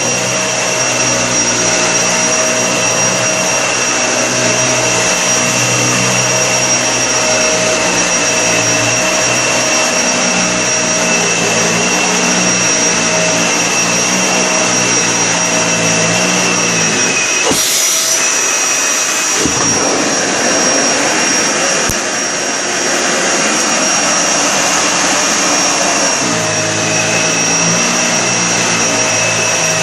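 Vacuum cleaner running over carpet, with a steady high whine over the rush of its airflow and a low hum that shifts as it moves. About 18 seconds in, the low hum drops out for a couple of seconds under a short hiss, then the vacuum runs on as before.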